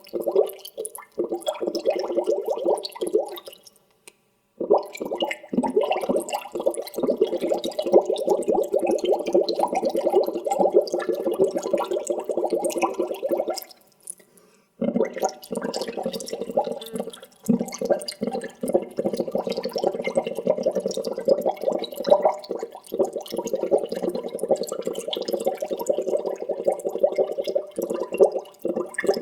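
Bubbles gurgling up through water in a dense, continuous stream of rapid pops. It stops briefly twice, about four seconds in and again around fourteen seconds in.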